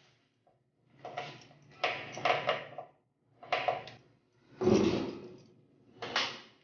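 A series of short scraping and clattering handling noises, the loudest a heavy thump about four and a half seconds in.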